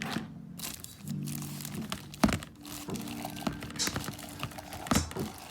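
Crinkling and rustling of packaging as items are handled, with a couple of sharp knocks, about two seconds in and again near the end, over faint background music.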